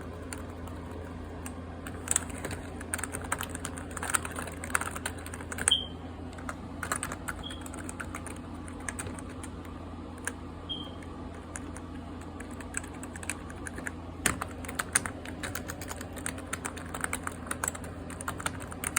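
Computer keyboard being typed on: runs of quick key clicks with short pauses between them, over a steady low hum.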